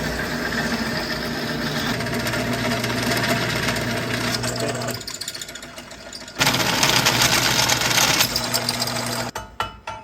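Electric drill running as it bores holes through steel angle-iron brackets. It runs for about five seconds, eases off briefly, then runs again louder for about three seconds.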